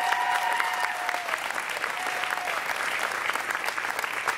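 A small audience clapping, with one voice holding a long whoop that trails off a little over a second in.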